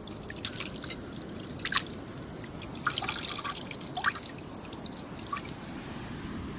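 Water dripping and trickling back into a basin from handfuls of raw pork being squeezed and rinsed, with scattered drops plinking into the water.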